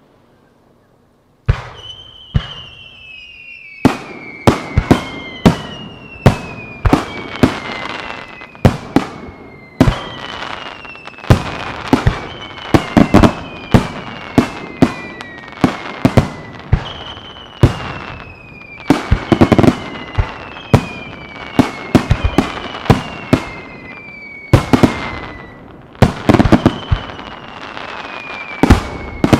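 Aerial firework shells bursting in a rapid barrage of sharp bangs, one after another, many times a second at its densest. Several whistles glide down in pitch over the bursts. The barrage starts after about a second and a half of quiet.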